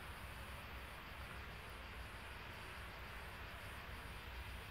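Faint, steady low rumble and hiss of a taxiing Boeing 737's jet engines at idle thrust.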